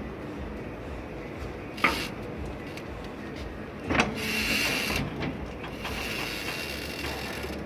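Toyota Camry V50 suspension creaking: a knock about two seconds in and another about four seconds in, each followed by scratchy, squeaky creaking.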